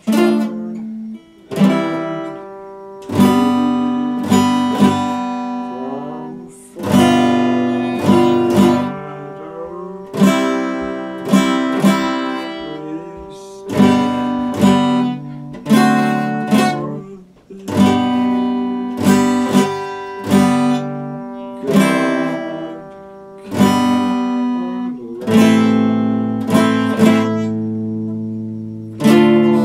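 Epiphone acoustic guitar played solo: chords struck one after another at a slow, even pace, each left to ring and fade before the next, now and then two strikes in quick succession.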